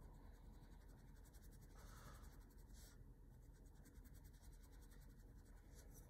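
Faint scratching of a wet paintbrush stroking over textured watercolour paper, near silence apart from a few slightly louder strokes.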